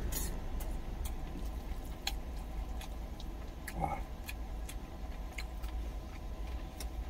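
Low steady rumble of an idling truck engine heard inside the cab, with scattered small clicks of chewing and the spoon, and a short hum from the eater about four seconds in.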